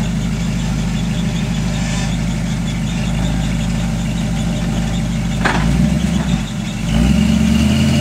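Jeep Scrambler rock crawler's engine running at a low, steady idle as it sits on a rock ledge, with a brief squeak about five and a half seconds in. Near the end the engine picks up in pitch and gets louder as it is given throttle.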